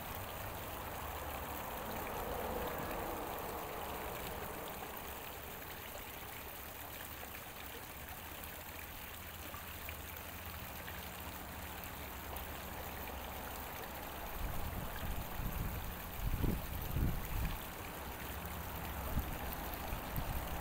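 Creek water running steadily over rocks. About two-thirds of the way through, a spell of low rumbling thumps rises above it.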